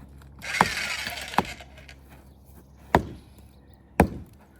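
Four sharp strikes of a hand tool on something hard, about one a second, each with a short ring, with a brief rush of scraping noise near the start.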